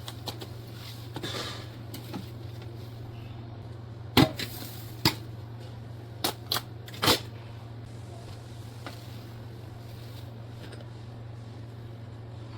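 Five sharp knocks or clacks of handled objects, spread out between about four and seven seconds in, over a steady low hum.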